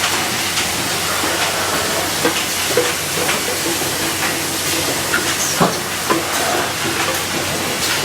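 Lid-closing (capping) machine running: a steady hissing noise with scattered clicks and knocks, the sharpest knock about five and a half seconds in.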